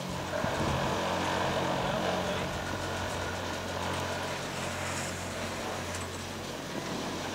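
Chairlift terminal machinery running with a steady low hum as chairs travel around the bullwheel.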